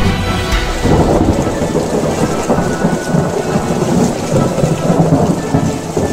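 Thunderstorm: steady heavy rain with low thunder rumbling and swelling again about a second in.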